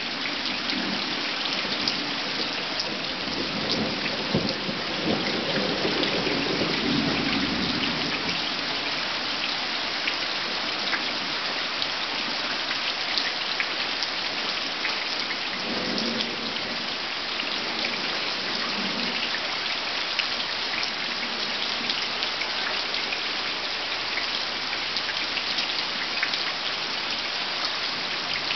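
Steady rain during a thunderstorm, with many sharp drop ticks close to the microphone. A deeper rumble of thunder swells about four to eight seconds in, with shorter rumbles around the middle.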